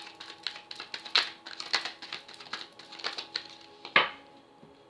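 A deck of tarot cards being shuffled by hand, a quick, irregular run of card slaps and flicks. The loudest snap comes about four seconds in, then the shuffling stops.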